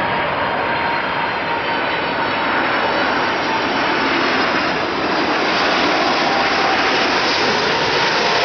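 Boeing 747-400 freighter's four jet engines on final approach, passing low and close: a steady jet roar with thin whining tones over it, slowly growing louder.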